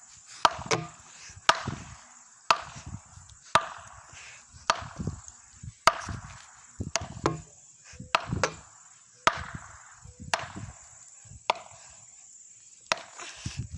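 A wooden board struck repeatedly against a tree, about a dozen hard wooden whacks, roughly one a second. The tree holds up and does not break.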